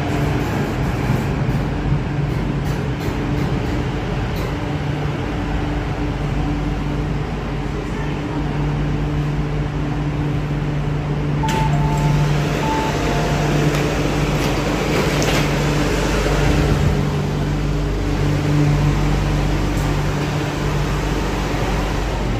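MTR Island Line Q-Train standing at the platform with a steady electrical and air-conditioning hum. About halfway through, the doors open with three short beeps and a rush of noise.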